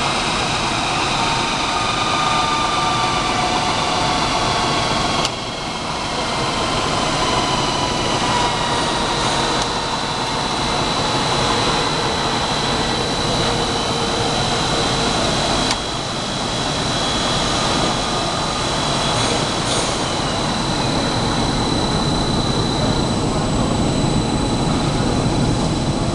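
SINGCHEER wire take-up machine running: electric motor driving a large steel spool at speed, a steady mechanical whir with a high whine and slowly falling tones. The level dips suddenly twice, about five and sixteen seconds in.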